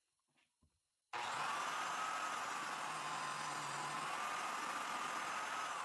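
Biscuit joiner switched on and running, its blade cutting a slot in a pine frame: it starts abruptly about a second in, then keeps up a steady high whine that wavers slightly under load. Near the end it is switched off and starts to wind down.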